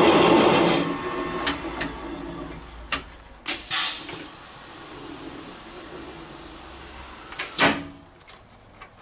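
A Serdi 100 valve-guide machine's spindle cutting the top of a valve guide in a Mopar 318 cylinder head, the cut stopping about a second in. After that come a few sharp clicks, a short hiss, a steady low hum of the machine, and a loud clunk with a hiss near the end.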